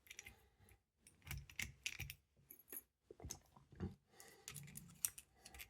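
Faint, scattered small metal clicks and rattles of a just-picked dimple lock and the tension tool and bobby pin in it being handled.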